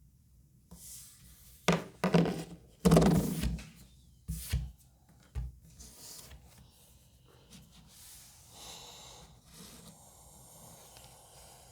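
Handling noise: a few sharp knocks and clatters about two to five seconds in, then soft rubbing.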